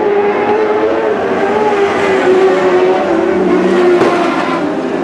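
Several Lightning Sprints, small winged sprint cars, racing together on a dirt oval. Their engines run continuously, the pitch wavering up and down and dipping a little near the end.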